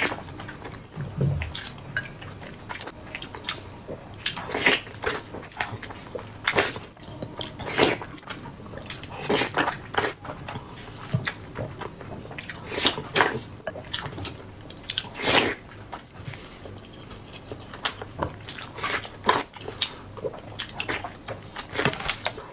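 Close-miked eating of braised eggs in chili broth: wet chewing and smacking mouth sounds, with irregular sharp clicks every second or so.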